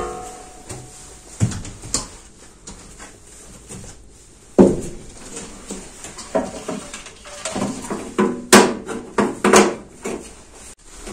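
A dog barks in short bursts: once about four and a half seconds in, again a couple of seconds later, then four times in quick succession near the end. Between the barks come scattered clicks and knocks of old wiring being pulled and handled in a stripped-out dashboard.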